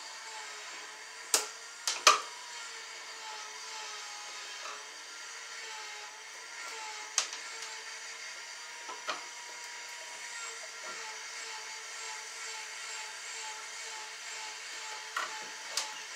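Hand tools, pliers or wire strippers, clicking and snapping as electrical wire is cut and worked at a wall junction box. There are a few sharp snaps, three close together about a second and a half in, then single ones spaced out, over a steady mechanical hum.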